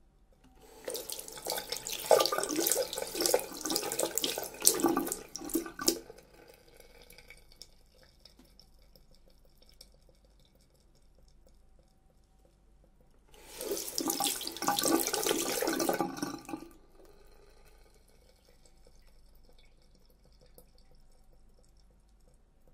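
Hands being washed under a running tap at a sink, in two spells of splashing water a few seconds each, the first about five seconds long and the second about three. Faint drips fall in the lull between them.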